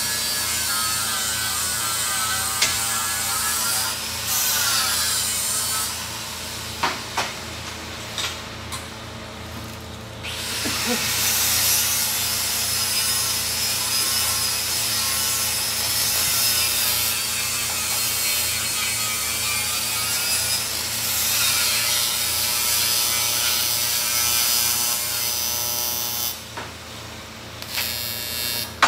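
Tools working, with scraping and rubbing and a few sharp clicks, over a steady low hum.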